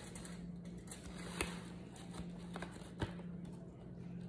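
A few faint clicks and taps of utensils and a foil baking pan as stuffed salmon is plated, over a steady low hum.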